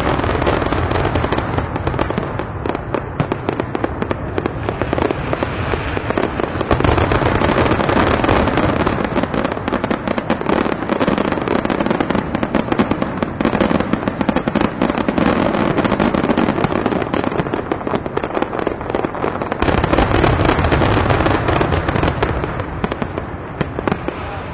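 A dense barrage of fireworks: rapid bangs and crackling with no break, heaviest about seven seconds in and again about twenty seconds in, thinning out near the end.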